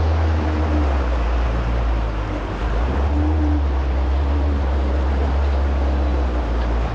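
Kawasaki SX-R 1500 stand-up jet ski running at speed: a steady low engine drone with the rush of hull spray and wind over it.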